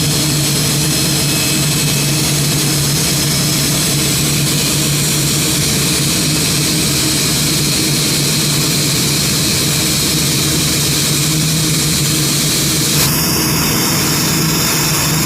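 Jet engines of a Boeing 787-9 Dreamliner airliner arriving, a steady loud rush with a low hum underneath; the high hiss changes about two seconds before the end.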